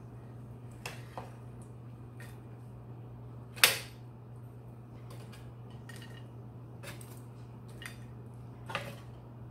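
Metal tongs clinking against an air fryer's wire basket and a ceramic plate as cooked ribs are lifted out: a handful of separate sharp clicks, the loudest about three and a half seconds in. A steady low hum runs underneath.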